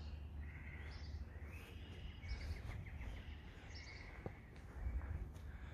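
Quiet outdoor ambience: small birds chirping faintly every second or so over a low, steady rumble.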